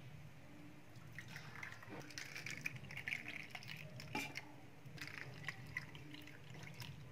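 Thickened milk kulfi mixture poured in a thin stream from a steel pan into clay matka pots and paper cups: a faint trickle and splash, with a few light knocks.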